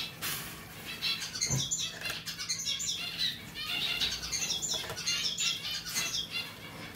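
A zebra finch splashing and fluttering its wings while bathing in a pet water fountain, over the fountain's steady trickle. Short high chirping calls come in clusters about once a second.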